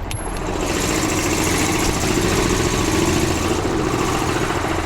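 Engine running steadily with busy highway traffic noise, a rush of sound building about half a second in and easing off near the end.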